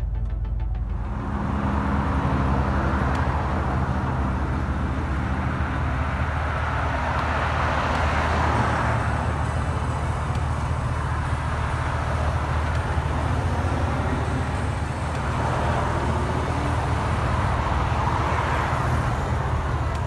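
2020 Chevrolet Silverado 1500 pickup idling just after start-up, heard from outside at the front of the truck: a steady low engine hum with a broad airy rush of fan and outdoor noise over it.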